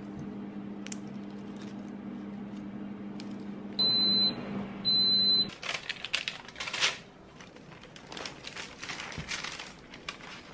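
Air fryer running with a steady hum, then two long high beeps about four and five seconds in as its cooking cycle ends, and the hum stops. The basket is then pulled out and handled with clattering knocks and clicks.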